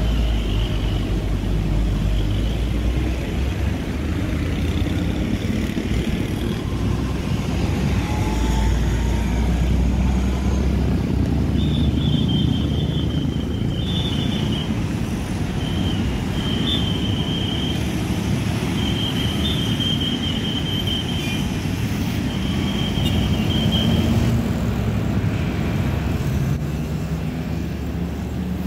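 Road traffic of cars and motorcycles driving over a level crossing: a steady engine and tyre rumble. Through the middle stretch a thin high tone comes and goes in several short spells of a second or two.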